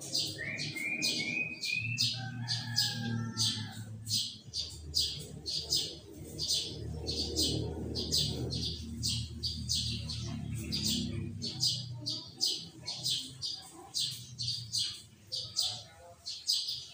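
Sooty-headed bulbul (kutilang) singing: a rapid run of sharp, high chattering notes, about three a second, with a few lower whistled phrases in the first three seconds. A low rumble sits underneath for the first twelve seconds or so.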